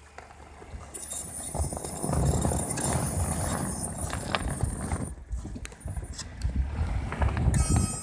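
Brake pads squealing: a thin, high-pitched squeal for about four seconds, then a shorter squeal with several tones near the end, over the low rumble of the moving vehicle.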